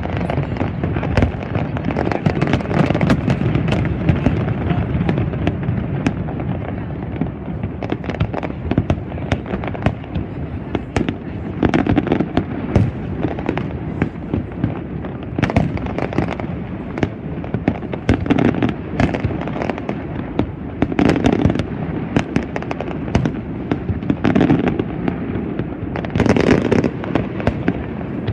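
Aerial fireworks display: a continuous barrage of shells bursting, with many sharp bangs one after another and louder clusters every few seconds.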